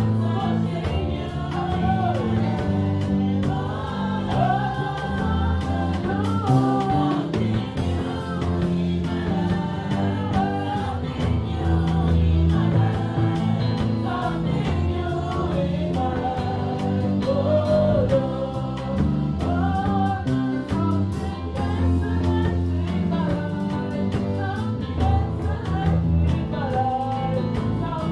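A woman singing a gospel worship song into a microphone with held, wavering notes, backed by a live band with drums.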